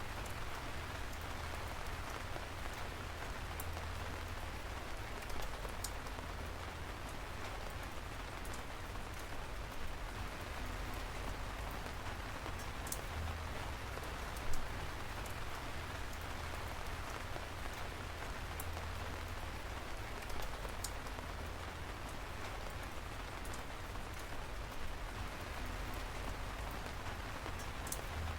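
Steady rain falling, an even hiss with scattered sharper drop hits, one of them standing out about halfway through.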